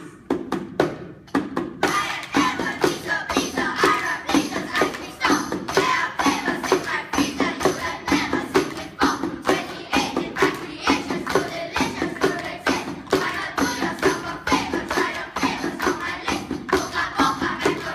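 A group of children chanting a poem in unison over a steady hand-percussion beat. The beat is heard alone at first, and the voices come in about two seconds in.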